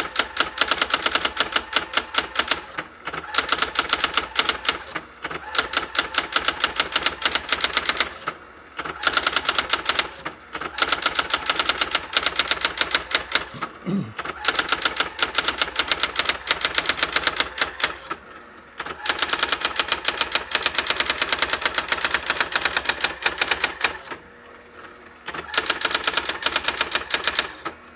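Brother GX-6750 electronic daisywheel typewriter printing its built-in feature demonstration on its own. Rapid runs of sharp character strikes last a few seconds each and are broken by short pauses.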